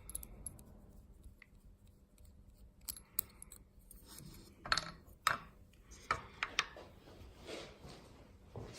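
Small metal clicks and scrapes of a Schlage lock cylinder being taken apart by hand on a bench, with a handful of sharp clicks clustered through the middle seconds.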